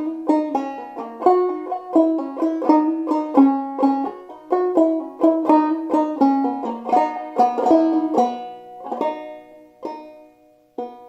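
Five-string banjo played clawhammer style in eCGCD tuning, picking out a phrase of a jig melody at a slow teaching pace. The notes come in a steady stream, then thin out about eight seconds in, with the last few left to ring.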